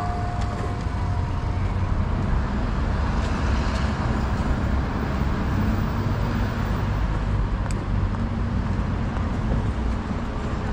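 Road traffic on a city street: cars driving past in a steady low rumble, swelling a little as one goes by a few seconds in.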